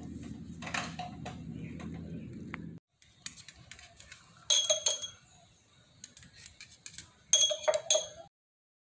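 A low steady hum with a few faint ticks. Then, after a short break, small metal parts and tools clink and ring against each other while a motorcycle brake master cylinder is handled during reassembly. The loudest clinks come about four and a half seconds in and again near seven and a half seconds, and the sound then stops.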